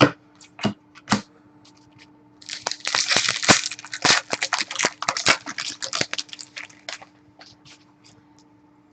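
A few sharp clicks of cards being handled, then several seconds of dense crinkling and crackling as a trading-card pack wrapper is handled and crumpled, tapering off to a few clicks near the end.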